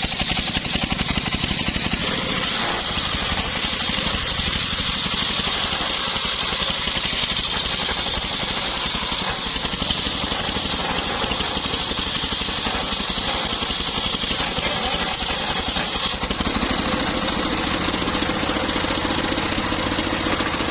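Engine driving a homemade circular-saw sawmill, running steadily, with a higher hiss on top that changes abruptly about sixteen seconds in.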